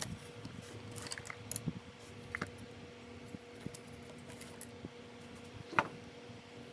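Small clicks and taps of tools and wires being handled at a workbench while soldering wires on a tiny drone, over a faint steady hum. The sharpest click comes near the end.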